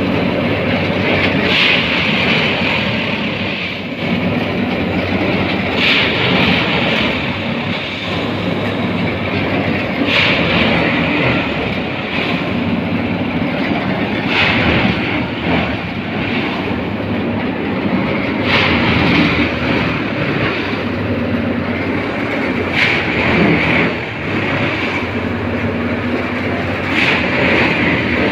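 Railway track tamping machine at work: a steady heavy machine drone, with a harsher burst about every four seconds.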